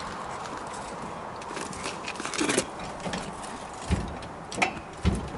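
A few irregular knocks and dull thumps over faint background noise, from work around the jack and wheel.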